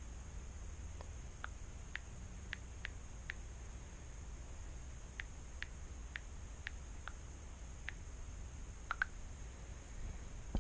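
Light, irregular clicking taps, about fifteen of them, from typing a message on a phone.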